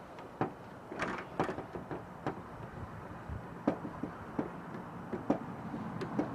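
Irregular small clicks and knocks of metal and plastic parts being handled while a nut is worked onto a fuel pump assembly, with the loudest knocks about a second in and again near the middle.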